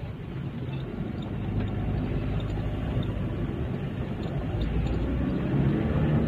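Vehicle engines running in slow traffic: a steady low rumble, with one engine growing louder toward the end.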